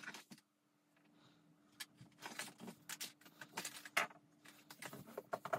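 Faint, irregular rustles and light clicks over a low steady hum, starting about two seconds in, with the sharpest click about four seconds in.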